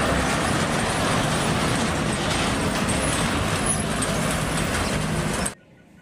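Car-carrier truck driving on a road: a steady engine and road-traffic noise that cuts off suddenly near the end.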